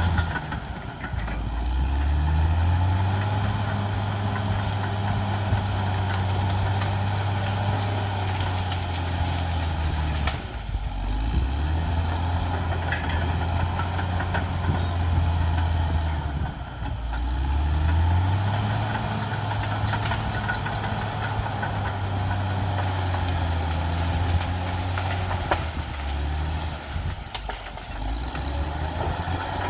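Caterpillar D6R XL bulldozer's diesel engine working hard and steadily. Its note dips and climbs back up a few times: it rises about two seconds in, falls near ten seconds, dips and climbs again around sixteen to eighteen seconds, and drops once more near twenty-seven seconds.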